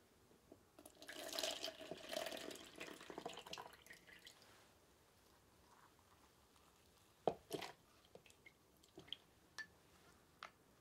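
Water squeezed by hand out of soaked temari-fu (small wheat-gluten balls), dripping and trickling into a small plastic tub for about three seconds. About seven seconds in comes one sharp click, then several lighter clicks and taps as the tub and bowl are handled.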